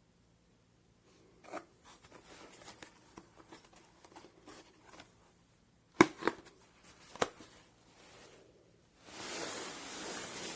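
Handling noises: rustling and scraping, two sharp clicks about six and seven seconds in, and a hissing rush near the end lasting about a second and a half.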